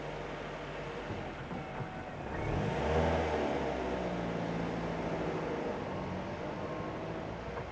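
A car engine revving up as the car pulls out of a parallel parking space and drives off. The revs climb to their loudest about three seconds in, then settle into steady running.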